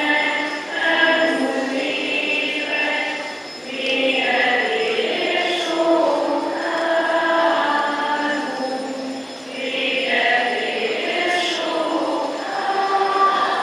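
A group of school students singing a farewell song together in unison, in long held notes, with short pauses between phrases.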